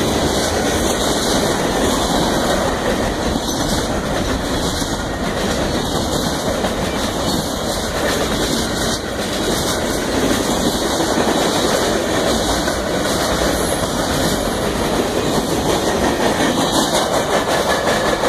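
Freight cars of a CSX train rolling past, with a steady rumble and clatter of wheels on rail.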